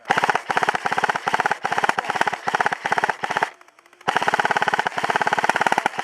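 Airsoft electric gun firing on full auto close by: rapid clicking shots in several short bursts, a brief pause, then one long burst near the end.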